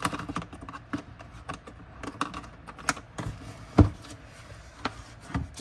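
Latches of a tool carrying case clicking open and the case being handled: an irregular run of sharp clicks and taps, with one louder knock a little after halfway.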